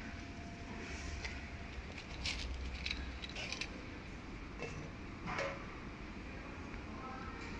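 XY-OQ-7000A automatic napkin folding machine running with a steady low hum, with irregular clicks and rustles from the folded paper napkin stacks on its output table, the loudest a little past five seconds in.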